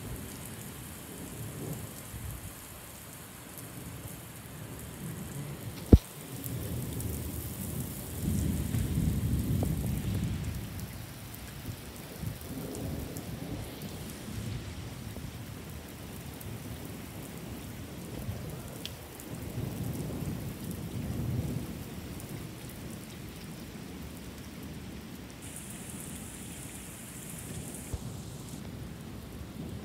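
Thunderstorm: steady rain hissing on pavement and lawn, with thunder rumbling low in several rolling waves. A sharp crack about six seconds in is followed by the longest, loudest rumble.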